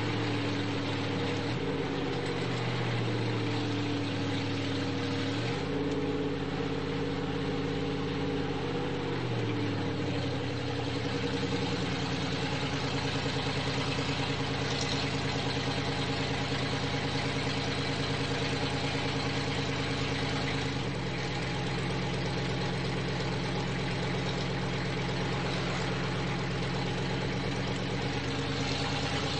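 Monster truck's engine running, heard from inside the cab while driving on a road. The engine note holds steady between a few clear steps in pitch, near the start, about a third of the way in, and about two thirds through.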